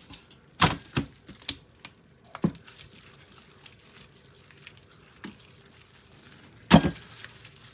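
Wet, sticky smacks and squelches of a marinated beef rib slab being rubbed and handled by plastic-gloved hands on a metal tray, with a louder smack near the end as the slab is lifted and turned over.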